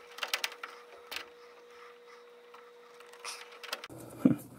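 Several small clicks and scrapes, mostly in the first second, of a metal forceps tip probing the pin holes of a plastic furnace wiring connector to press down the locking barbs on a wire terminal, over a faint steady hum.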